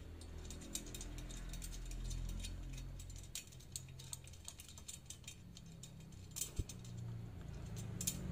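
Light metallic clicking and jingling of motorcycle wheel spokes as the brass spoke nipples on a new chrome rim are turned by hand, with a faint low hum underneath.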